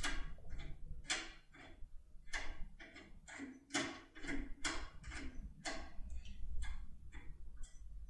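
Foil-wrapped impression pick being rocked and turned inside a brass Polar lock cylinder: irregular metallic clicks and scrapes, about one or two a second, over a faint low hum.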